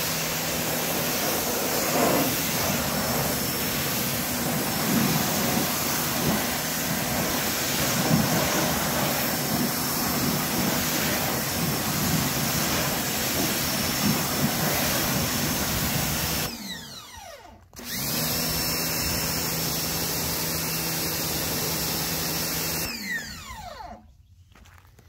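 Sun Joe electric pressure washer running, its motor and pump humming steadily under the hiss of the high-pressure water jet striking the car's body and wheel. About 16 seconds in the spray stops and the motor winds down, it starts again about a second later, and it winds down and stops again near the end.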